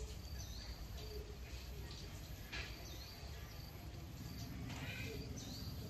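Outdoor ambience with a low rumble of wind on the microphone. A small bird's short high call, held and then dropping a step in pitch, repeats three times about two and a half seconds apart.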